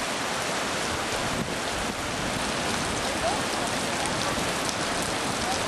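Steady rushing of river rapids, an even roar of white water with no breaks.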